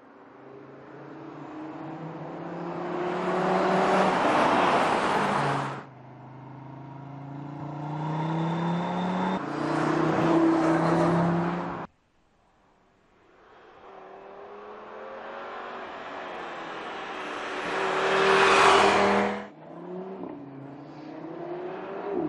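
Audi RS3's 2.5-litre turbocharged five-cylinder engine accelerating hard three times, its note rising and swelling with each pull. Each pull ends in a sudden drop.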